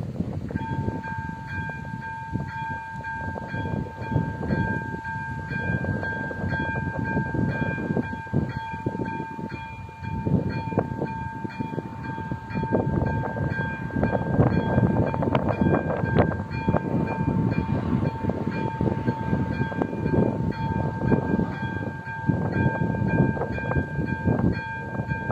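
Level-crossing warning bell sounding a steady two-tone electronic ring, starting about half a second in as the crossing activates and the barriers are lowered. Gusty wind rumbles on the microphone beneath it.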